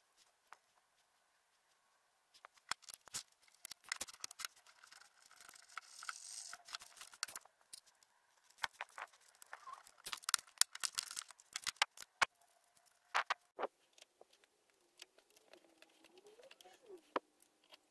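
Steel parts of a small drill press vise being handled and reassembled by hand: irregular clicks and light metal knocks of parts and tools, with stretches of scraping and rubbing.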